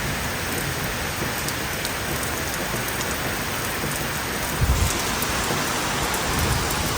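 Heavy rain falling steadily in a thunderstorm, with brief low thumps twice in the second half.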